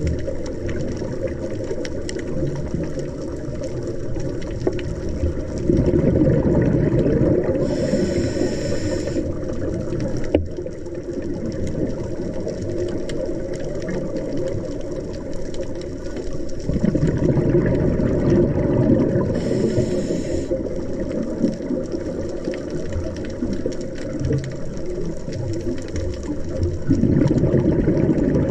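Underwater sound of a scuba diver breathing through a regulator: a steady low rumble swelling into bursts of exhaled bubbles about every ten seconds, with a brief hiss twice.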